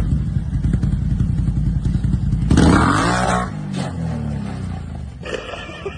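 Off-road motorcycle or quad engine running, with a loud surge about two and a half seconds in; the engine pitch then falls away and the sound dies down.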